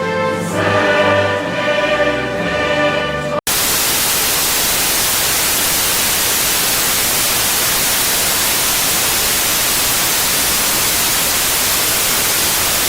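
Music with sustained chords, cut off suddenly about three and a half seconds in by a loud, steady hiss of television static: the dead-channel noise of a broadcast gone off the air.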